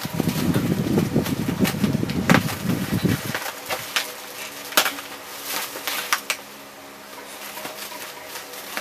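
Plastic bubble-wrap packaging rustling and crinkling as it is handled, pulled off and cut open, with many short sharp crackles.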